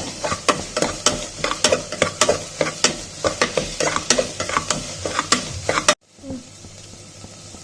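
A spatula scraping and knocking against a pan about three times a second as onions and ginger-garlic paste are stirred and fried in oil, over a sizzle. The stirring stops abruptly about six seconds in, leaving only a faint steady hiss.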